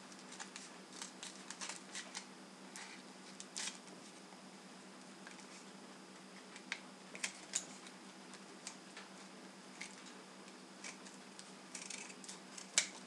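Scissors cutting into a rolled paper tube: a scattering of small, faint snips and paper crinkles at irregular intervals, over a faint steady hum.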